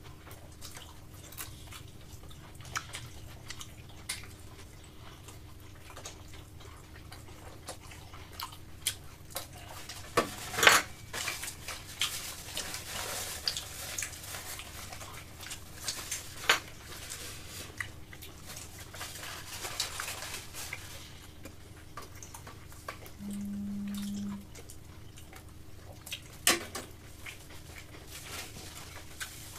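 Knives and forks clinking and scraping on plates while people eat pizza, in scattered light clicks with a few sharper clacks. A low steady buzz lasts about a second near the end.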